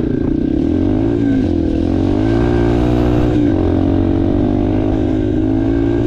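Yamaha TTR230's single-cylinder four-stroke engine running as the bike is ridden, its pitch climbing about a second in, dipping, climbing again, then holding steady. The bike is still in its corked-up stock tune.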